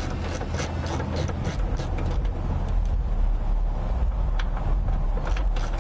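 Ratchet socket wrench clicking in an even series, about three clicks a second, as a hood bolt is turned; the clicking stops about a second and a half in and starts again near the end. A steady low rumble runs underneath.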